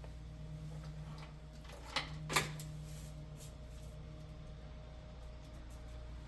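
Two light clicks about two seconds in, half a second apart, over a low steady hum.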